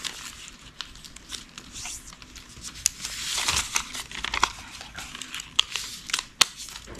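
Origami paper being folded and creased by hand: crinkling and rustling with many short, sharp crackles as the folds are pressed down.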